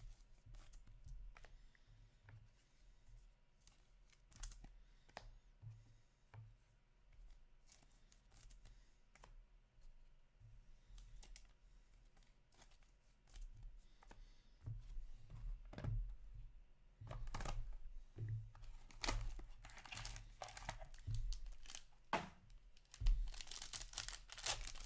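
Faint rustles and clicks of trading cards and a plastic card sleeve being handled, then, from about halfway, louder crinkling and tearing as the foil wrapper of an Upper Deck Black Diamond hockey card pack is torn open.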